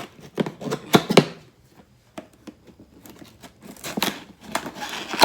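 Cardboard box being opened by hand: irregular sharp clicks and knocks, with tearing and rustling of the packaging, the loudest knocks about a second in.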